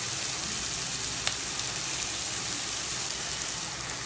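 Chopped onions, garlic and ginger paste sizzling in hot oil in a pot: a steady frying hiss, with a single light click about a second in.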